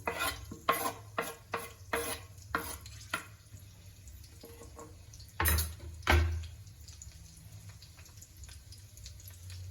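A spatula stirring chopped garlic and chili frying in hot oil in a pan, with the oil sizzling underneath. Quick clinks and scrapes against the pan repeat for the first three seconds, then come two louder knocks about five and six seconds in.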